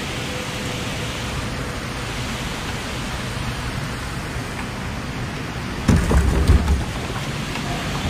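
Steady rushing noise of wind and water around a kayak, with a short burst of loud low knocks and rumble about six seconds in.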